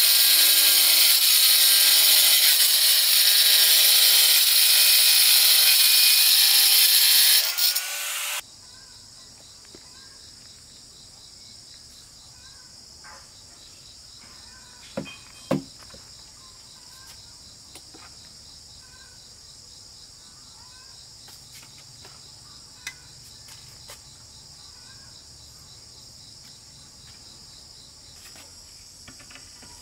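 A power saw cuts steadily for about eight seconds, then stops abruptly. After that, a steady high chorus of insects such as crickets carries on, with a few light knocks in the middle.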